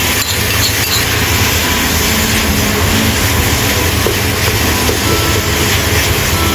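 Minced meat sizzling as it is stir-fried with chopped tomato and onion in a hot wok, a wooden spatula scraping and turning it. A steady low hum runs under the frying.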